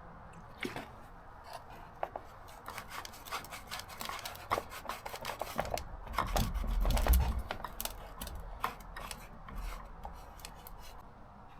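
Hand scraping and rubbing of old dried glue and surround remnants off a car-audio woofer's basket, in irregular short scrapes and clicks. A louder low bump of handling comes about six to seven seconds in.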